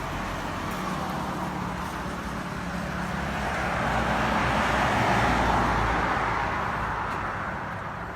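A road vehicle passing by, its noise swelling to a peak about five seconds in and then fading.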